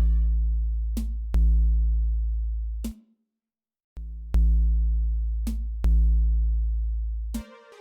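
Background electronic music: deep synth bass notes with drum-machine hits, each note fading before the next, with the music cutting out for about a second near the middle.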